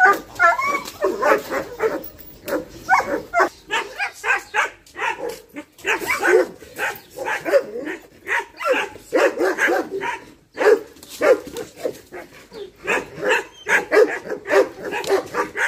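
Dogs barking and yipping in quick, irregular succession, one short call after another throughout.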